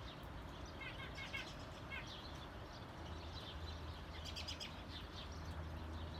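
Small wild birds chirping in short calls, a quick run of them about a second in and more around four to five seconds in, over a faint steady low hum.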